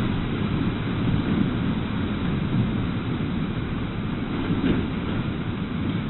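Floodwater rushing through a room as a steady, loud roar of water, with a faint knock about two-thirds of the way through.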